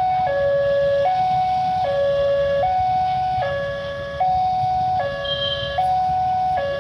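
Railway level-crossing warning alarm sounding a two-tone electronic chime, alternating high and low about every three-quarters of a second: the warning that a train is coming and the barriers are down. Motorcycle engines idle underneath.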